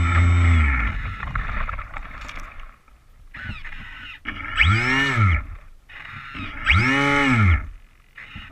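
Small airboat's engine running at speed, then throttling back about a second in; later it is revved twice, each rev rising and falling in pitch over about a second.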